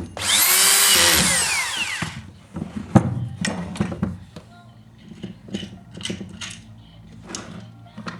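A small electric power tool runs for about two seconds, its whine falling in pitch as it winds down. After that come scattered clicks and knocks of tools and parts being handled.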